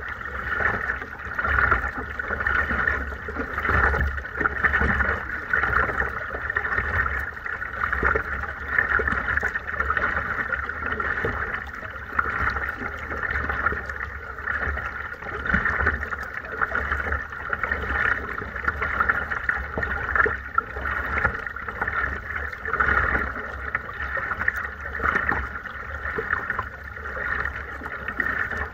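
Water washing and gurgling against the bow of a kayak being paddled along at about three miles an hour. It swells and fades every second or two over a low steady rumble.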